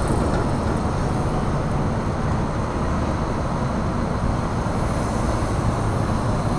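Steady low rumble of the Carnival Glory, a large cruise ship under way close by, mixed with wind noise on the microphone.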